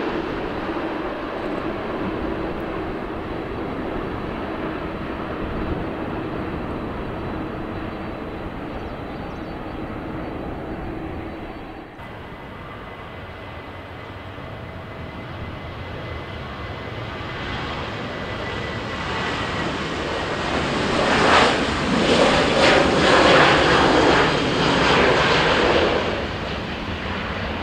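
Jet engines of a Boeing 777-300ER running during its landing rollout, the noise slowly easing. About twelve seconds in it cuts suddenly to a second jet airliner, whose engine noise builds to a loud rush near the end.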